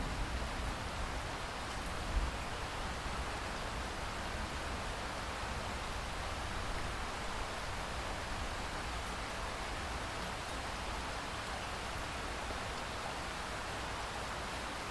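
Steady rain falling, an even hiss with no let-up. A brief low thump about two seconds in.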